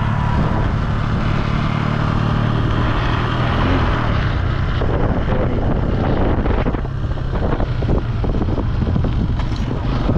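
Bajaj Boxer 150X single-cylinder four-stroke motorcycle engine running steadily under way, with wind buffeting the microphone. About halfway through the engine note gets less even.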